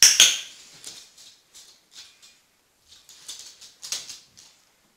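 A small dog's claws ticking on a laminate floor in scattered light taps as it walks about, opened by a loud sharp noise right at the start.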